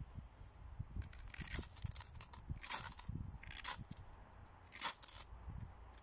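A mora knife's spine scraped down a ferrocerium rod in short, sharp strikes, about five at roughly one-second intervals, throwing sparks onto birch-bark dust to light it. Wind rumbles on the microphone throughout, and a thin, wavering high whistle runs through the first half.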